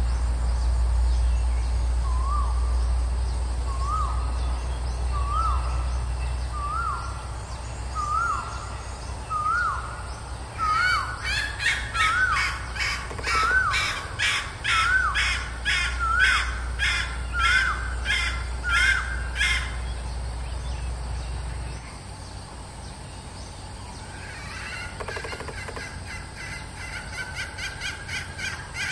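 Female red junglefowl calling: a series of short rising-then-falling notes, first about every second and a half, then speeding up to about one a second. From about ten seconds in, a second, higher and faster series of calls runs alongside. Fainter quick calls return near the end.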